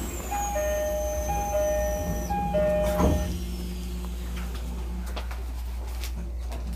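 Train door-closing chime on a Tokyo Metro 16000 series: a two-note descending chime sounded three times. The sliding doors then shut with a thump about three seconds in, followed by the steady hum of the standing train.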